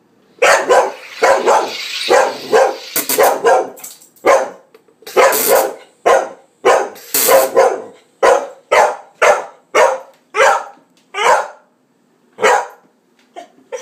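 Cardigan Welsh Corgi barking over and over, about two barks a second, at the hissing of a SodaStream carbonating in the first few seconds; the barks thin out near the end.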